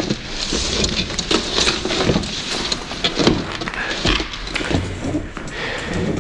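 Rustling, scraping and crackling of people scrambling through brush and debris, with dull thuds of footsteps and handling noise.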